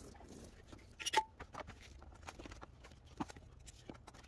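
Scattered small clicks and knocks of hand tools and parts being handled during engine work. One sharper click with a short ring comes about a second in, and another knock a little after three seconds.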